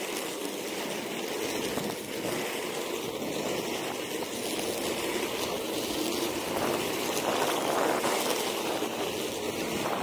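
Inline skate wheels rolling on rough asphalt: a steady rushing hiss.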